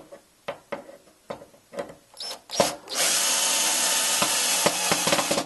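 A few light knocks, then a cordless drill runs, boring into the wooden panel of the case for about two and a half seconds before it stops near the end.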